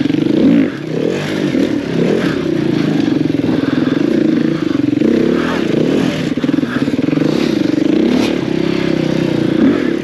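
Enduro dirt bike engine running under load as the bike is ridden over the track, its revs rising and falling continuously.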